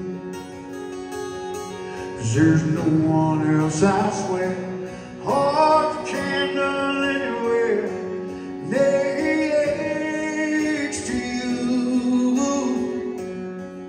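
A man singing a slow country ballad live, accompanying himself on an acoustic guitar, amplified through a concert hall's sound system.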